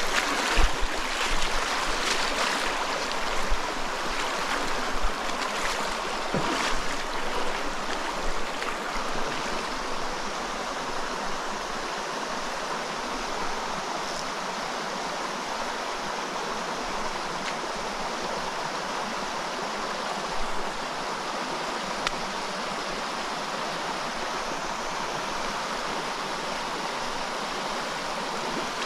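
Small rocky mountain stream flowing: a steady rush of water. A few light knocks sound in the first several seconds.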